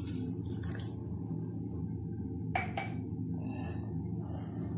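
Mutton stock poured from a jug into a wide pan of fried mutton and peas, the liquid splashing into the pan, over a steady low hum. Two light knocks come about two and a half seconds in.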